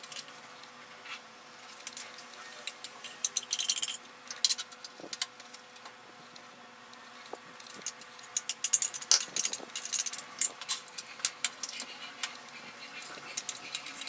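Fork scraping and tapping tuna out of tin cans into a stainless steel pot: light metallic clinks and scrapes, coming in short runs and busiest over the last few seconds.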